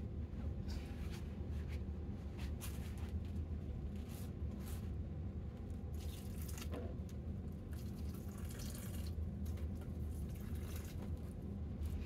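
Hand-held spray bottle misting potted seedlings: a series of short, sharp spritzes at irregular intervals, over a steady low hum.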